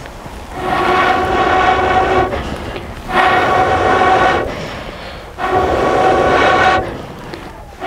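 A blowpipe blown into a wood fire in a clay chulha, three long blows each giving a steady hooting tone over a rush of air. The fire is being fanned to heat the tawa set on it.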